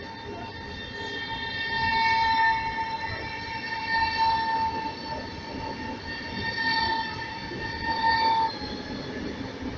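ED250 Pendolino high-speed electric train pulling out of the station and rolling past. A steady high-pitched whine with several overtones sits over the rumble of its running gear, and the whine stops about eight and a half seconds in.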